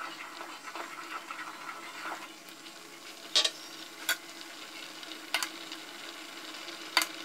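Soup simmering in an aluminium pot, stirred with chopsticks to swirl beaten egg into ribbons, with a few sharp clinks of utensils against the pot in the second half.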